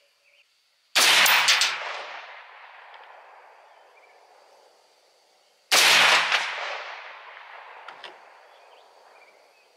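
Two rifle shots from a .308 AR-10-style semi-automatic rifle, about five seconds apart, each followed by a long echo that dies away over a couple of seconds.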